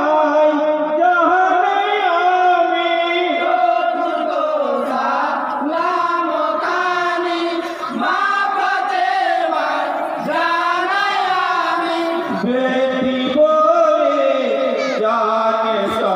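A group of men singing a Bengali jari song in chorus, chanting together in long, wavering notes.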